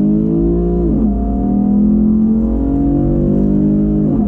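Chevrolet Camaro's 3.6-litre V6 with a Borla aftermarket exhaust accelerating hard under wide throttle. The revs climb, fall sharply as the automatic transmission upshifts about a second in, then climb again to a second upshift near the end.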